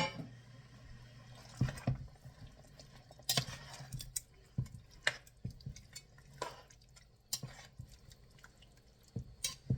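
Chicken pieces being put into and stirred through a pot of thick tomato gravy: irregular wet plops and the occasional knock of a utensil against the pot, about a second apart, over a low steady hum.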